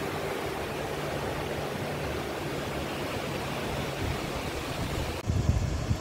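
Steady rushing outdoor background noise. A little over five seconds in it cuts to a lower, uneven rumble with a few louder bumps.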